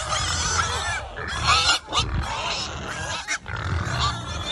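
A group of pigs grunting and oinking, with short high squeaky calls mixed in.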